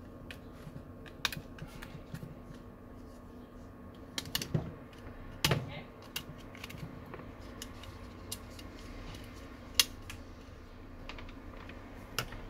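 Plastic snap clips of an LG Leon's midframe clicking loose as a plastic opening tool pries around the edge, in scattered irregular clicks with a few sharper snaps among them.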